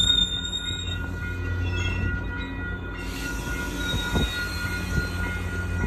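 Commuter train coaches rolling slowly past the platform: a steady low rumble with thin, faint wheel squeal, and a couple of brief knocks about four and five seconds in.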